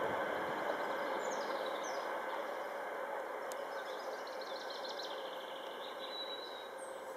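Train hauled by a Czech class 750 diesel locomotive moving away, its engine and rail noise fading steadily. Birds chirp over it from about a second in.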